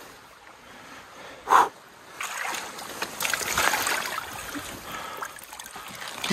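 Water splashing and sloshing as a large chinook salmon is dipped into shallow river current and lifted out again, with one brief sharp sound about a second and a half in.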